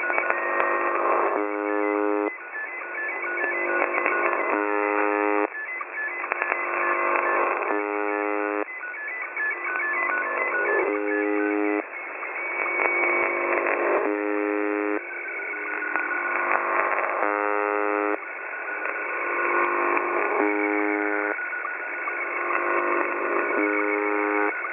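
UVB-76 ('The Buzzer') heard over a shortwave radio receiver. A harsh buzz tone sounds for about a second roughly every three seconds, eight times. Between the buzzes are noisy stretches with quick beeping tones in the first half and a held whistle-like tone later.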